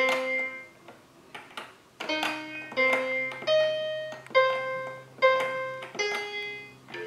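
Electronic toy keyboard notes from the VTech Baby Amaze play set's buttons: a click and a single synthesized note with each press, about seven notes in all at uneven intervals, with a pause after the first.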